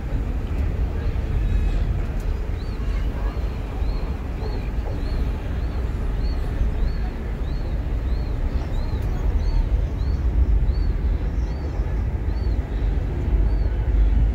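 Steady low rumble of a ferry's engine with wind and water noise. A faint high chirp repeats about every 0.6 s from a few seconds in, with faint voices underneath.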